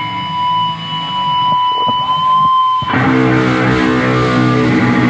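Heavily distorted electric guitar music. A steady high ringing tone holds over quieter playing, then about three seconds in a thick, loud distorted guitar wall starts.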